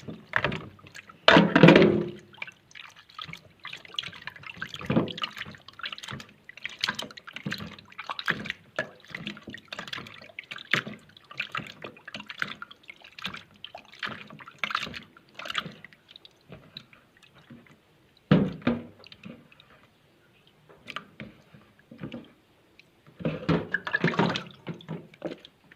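Water splashing and dripping in short, irregular bursts, with small knocks, as snail meat is handled in water for washing before it is boiled.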